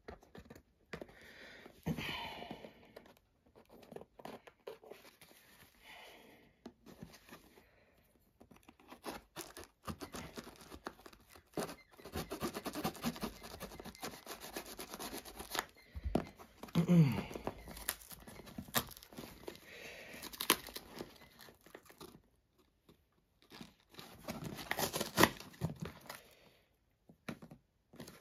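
Cardboard shipping box being cut and torn open by hand: irregular tearing and crinkling of the paperboard with scattered scrapes and knocks, broken by short pauses.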